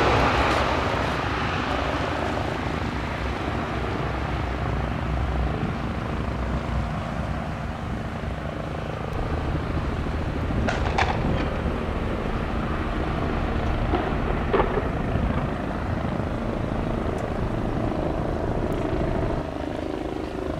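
C-130 Hercules four-engine turboprop at takeoff power, loudest as it passes at the start, then a steady drone that drops away as the aircraft climbs off.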